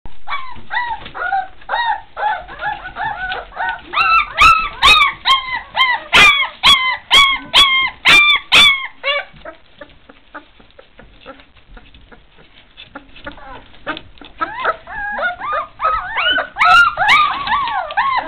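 Four-week-old puppies whining and yelping in short, high calls that rise and fall in pitch, about two a second. The calls die down for several seconds in the middle, leaving faint small clicks, then start up again near the end.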